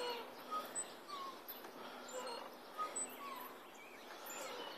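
Faint, scattered short bird chirps over quiet outdoor background noise.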